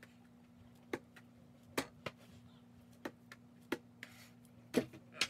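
A series of sharp, short clicks at uneven spacing, roughly one every second or so, over a steady low hum.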